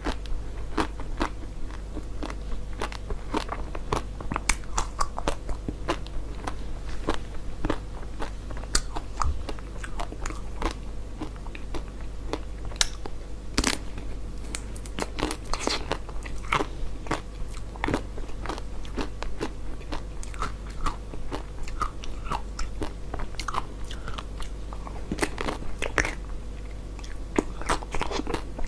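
Frozen red-coated sweet balls being bitten and chewed close to the microphone: a continuous run of sharp crunches and cracks of the hard frozen coating, with chewing in between, over a steady low hum.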